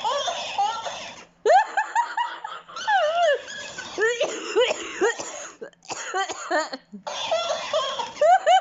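A person laughing and coughing, with a chesty cough, while a pet duck copies them with quick runs of calls. The sound comes in several runs broken by short pauses.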